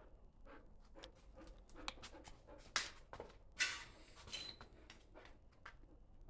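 A dog panting, with several sharp clicks and knocks; the loudest come near the middle.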